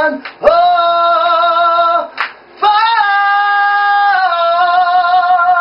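A man's voice singing a cappella: three long held notes with a slight vibrato, the middle one a little higher, ending the song.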